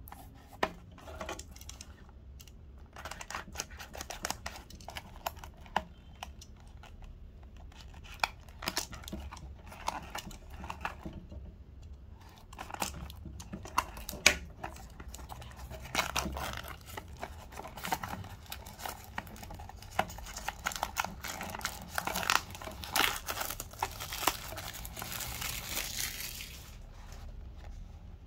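Cellophane shrink-wrap being torn and peeled off a small cardboard box, crinkling and crackling in irregular bursts. The crinkling turns dense and continuous about three quarters of the way through, then stops shortly before the end.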